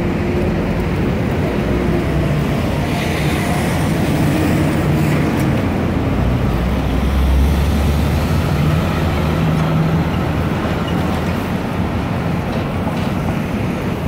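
Street traffic with the engines of trucks, a van and taxis running and passing close by. The low rumble swells about halfway through.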